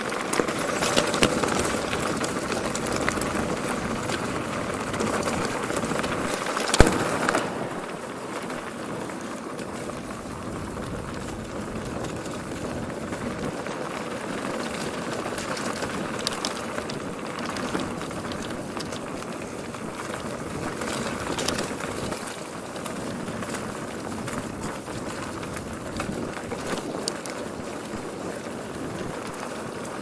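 Mongoose Tyax mountain bike rolling fast down a rutted dirt track: steady tyre noise on the dirt with small clicks and rattles from the bike over the bumps, and one sharp knock about seven seconds in.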